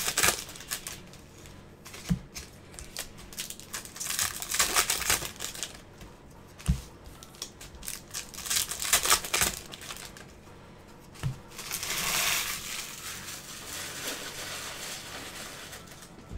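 Bowman baseball card pack wrappers crinkling and tearing in several bursts as packs are opened by gloved hands, with three short soft knocks in between.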